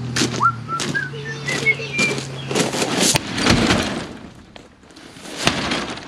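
Repeated metal knocks and clanks from a sledgehammer worked against the bottom of a box truck's shut roll-up door, several a second, thinning out after about three and a half seconds. Birds chirp between the knocks, and a steady low hum stops a little after three seconds in.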